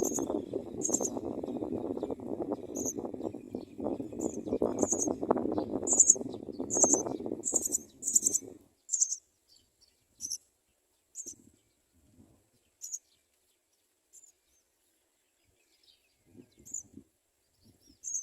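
House sparrows giving short, high, thin chirps over and over, about once or twice a second. They come fastest about halfway through and grow sparse later. A dense low rustling noise runs under them for the first half and cuts off suddenly.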